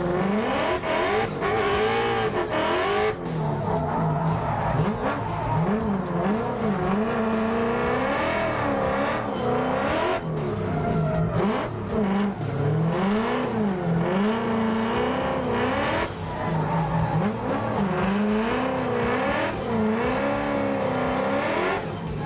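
Ford Mustang V8 drift car's engine revving up and down over and over, its pitch swinging every second or so as the car is held sideways in second gear, with tyre squeal from the spinning rear wheels.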